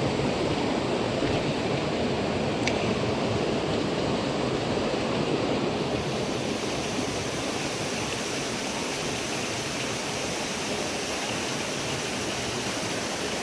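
Steady rushing of water from a waterfall on a small mountain stream, with a single sharp click about two and a half seconds in.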